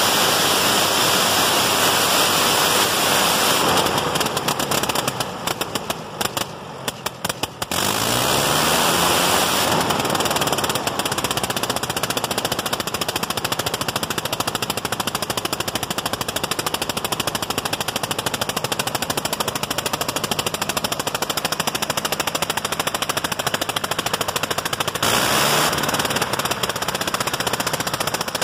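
1918 Gnome rotary aircraft engine running on a test stand, turning its propeller with a fast, staccato firing beat and a rush of propeller wind. About four seconds in it drops back to slower, separate firing pulses for a few seconds, then picks up speed again with a rising pitch and runs steadily.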